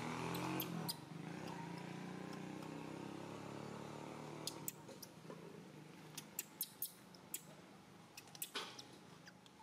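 A steady engine hum that fades away over the first few seconds, followed by scattered sharp clicks.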